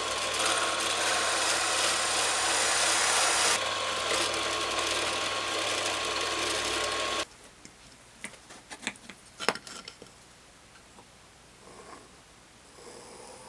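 A power tool running steadily, which cuts off abruptly about seven seconds in. A few light clicks and knocks follow.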